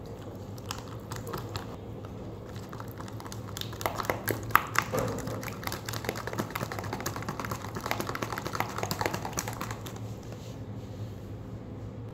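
Thick clear-and-green slime being pressed and stirred in a plastic tub, giving a dense run of sticky clicks and crackles that swells a few seconds in and fades out near the end. A steady low hum runs underneath.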